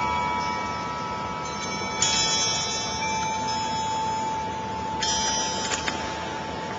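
Metal tube wind chimes ringing as the wind swings them: fresh strikes about two seconds in and again about five seconds in, each setting off a cluster of high tones, while one steady ringing note carries on between them.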